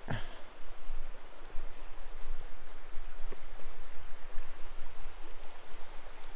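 River water rushing steadily over rocks, an even hiss of flowing water with a low rumble underneath.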